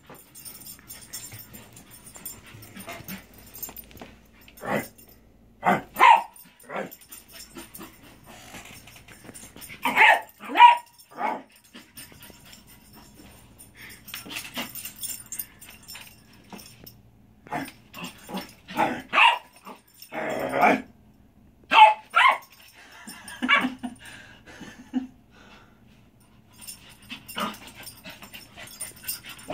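Small dog barking and yipping in short, scattered bursts, with quieter gaps between: excited play barking during a bout of zoomies.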